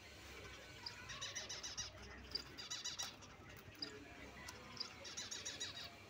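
Small pet parrots chirping in quick repeated trills, in several bursts.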